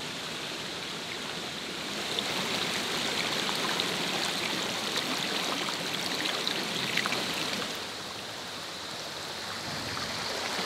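Shallow creek water running and rippling over rocks, a steady rushing that grows a little louder about two seconds in and eases off again near the end.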